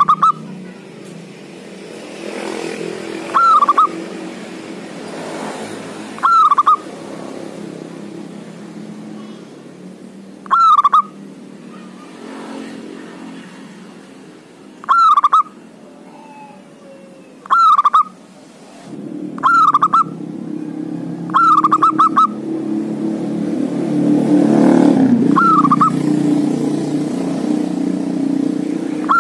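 Male zebra dove (perkutut) singing its territorial call to rivals: about ten short, quick coo phrases, each a few seconds apart, two of them close together near the end. Under them is a low background rumble that grows louder in the last third.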